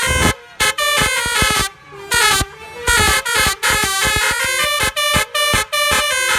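Basuri multi-tone musical air horns driven by a DAV air horn tone module, playing a fast melody of short, sharply cut notes that step up and down in pitch, with brief pauses about half a second and about two seconds in.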